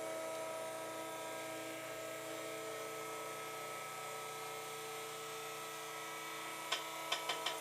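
Electric motor of a powered chiropractic table running steadily as it raises the patient up, with a few sharp clicks near the end just before it stops.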